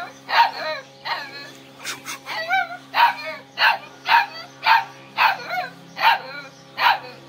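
Bakarwal puppy barking over and over: about ten short, high-pitched barks, roughly one every 0.7 seconds.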